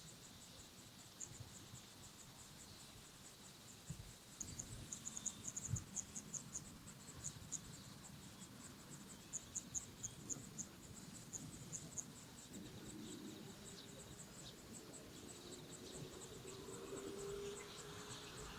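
Insect, likely cricket or katydid, chirping: rapid runs of very high, short chirps several times a second, densest between about four and twelve seconds in. A faint low hum comes in during the last few seconds, slowly rising in pitch.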